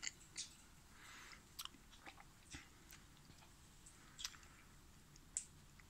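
Near silence broken by faint, scattered small clicks and crunches, typical of pet parakeets cracking seed with their beaks.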